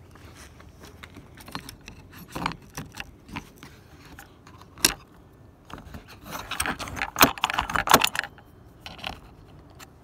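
A ring of keys jangling together with small clicks and rattles of the lock hardware being handled. There is one sharp click about five seconds in, and the busiest rattling comes between about six and eight seconds in.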